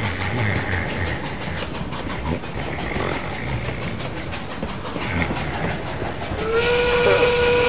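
Steam train running along the rails, then its whistle blows loudly near the end as a chord of several steady pitches, rising slightly as it starts.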